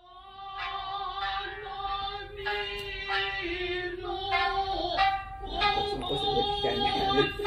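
A high voice singing a slow melody of long held notes, with music, the sound growing fuller after about five seconds.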